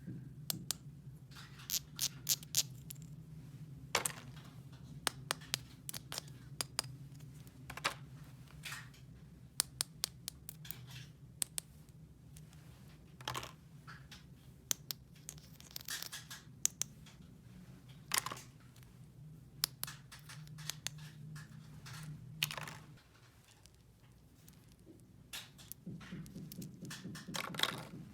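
Small plastic toy pieces being handled and set down: irregular sharp clicks and taps mixed with scratchy rustling, over a steady low hum that drops out about 23 seconds in and returns near the end.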